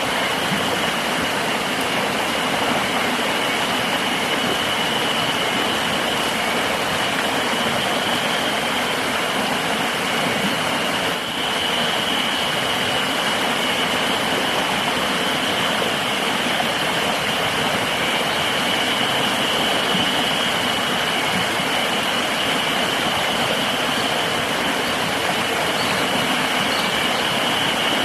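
A river rushing steadily, with a continuous high-pitched insect drone over it.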